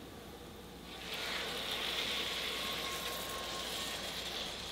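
Blended tomatillo verde sauce being poured into a hot electric skillet of seared pork, starting a steady sizzle about a second in.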